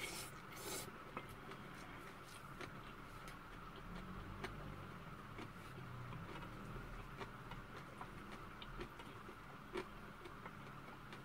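Light clicks and scrapes of wooden chopsticks against a stainless steel bowl of rice as it is stirred and picked at, with a short eating sound as a bite is taken near the start, over a steady faint hum.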